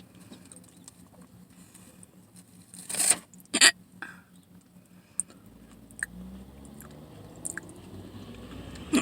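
Two sharp hiccups about half a second apart, with small clicks and chewing sounds around them.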